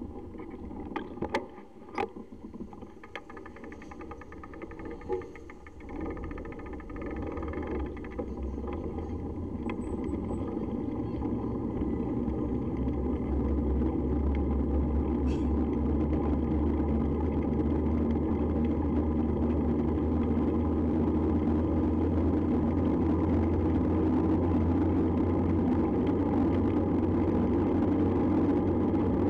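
Wind buffeting and road rattle on the built-in microphone of a handlebar-mounted mini action camera on a moving mountain bike. It grows louder over the first dozen or so seconds and then holds steady, with a few sharp knocks in the first several seconds.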